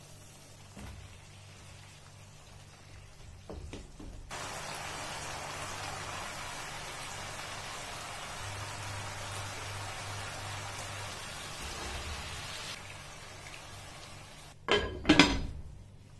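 Curry sizzling in a non-stick pan on a gas stove: an even hiss that starts about four seconds in and stops a few seconds before the end. Two loud knocks of cookware near the end.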